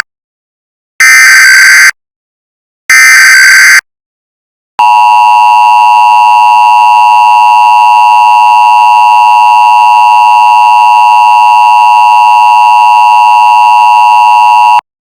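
Emergency Alert System broadcast tones: two roughly one-second bursts of screeching SAME data tones, then the EAS attention signal, a steady two-tone alert, held for about ten seconds and cutting off abruptly.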